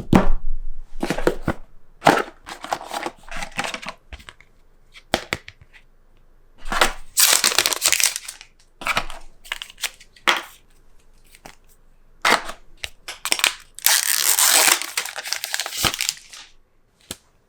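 A phone's retail box and its packaging being opened and handled: irregular rustling, crinkling and scraping of cardboard and plastic in short bursts, with the two longest, loudest stretches around the middle and near the end.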